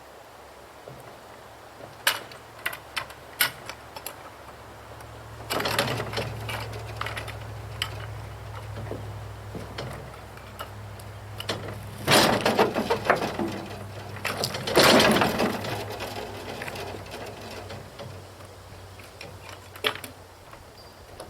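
A motor running steadily at a low pitch, with a few sharp clicks a couple of seconds in and three loud bursts of clatter, about six, twelve and fifteen seconds in.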